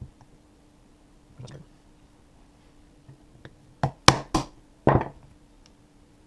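A hammer striking to drive out the small pin that holds the firing pin assembly in a GSG 1911 pistol: a few light taps, then four sharp knocks in quick succession about four seconds in.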